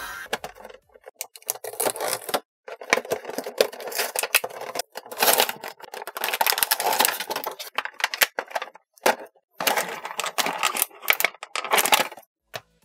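Clear plastic toy packaging crinkling and crackling as it is opened and handled, in irregular bursts with sharp clicks and brief pauses.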